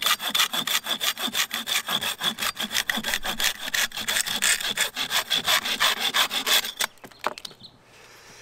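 A small folding pruning saw with a straight blade cutting an aspen branch in quick, even back-and-forth strokes, stopping a little before the end with a couple of short knocks. The saw is cutting poorly, its teeth damaged in the user's view.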